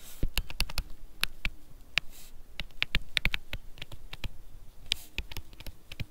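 Stylus tapping and scratching on a tablet screen while handwriting: rapid, irregular clicks with a few short scratchy strokes.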